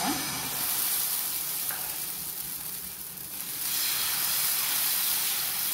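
Tomato dosa batter sizzling on a hot dosa tawa as it is poured from a ladle and spread thin in circles. The steady hiss eases a little about halfway through, then rises again.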